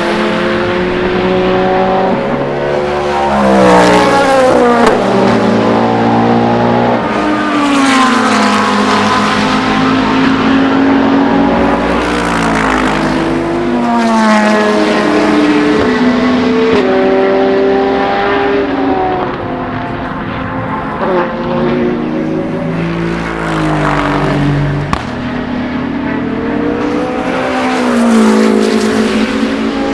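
Race cars going past one after another at racing speed. Each engine note climbs and then drops in pitch as the car goes by, with a fresh car arriving every few seconds.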